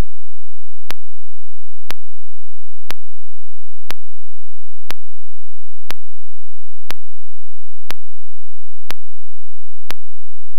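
Sharp, evenly spaced ticks, about one a second, over a faint low hum.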